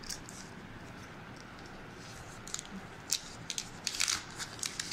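Thin plastic wrapping crinkling and rustling as a phone is slid out of its plastic sleeve. It is quiet at first, then a run of crisp crinkles starts about halfway in.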